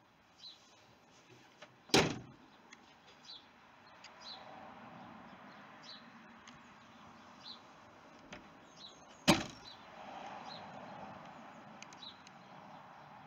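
Two loud slams about seven seconds apart, the first about two seconds in: the rear door of a Truckman hardtop canopy and the tailgate of a Nissan Navara pickup being shut. Faint bird chirps are heard between them.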